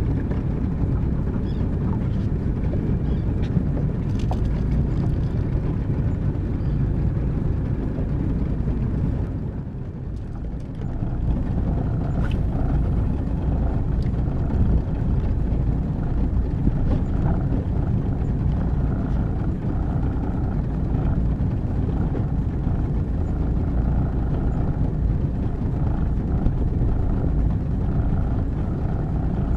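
A boat under way: steady motor and water noise with wind rumbling on the microphone. It eases off briefly about ten seconds in, then picks up again.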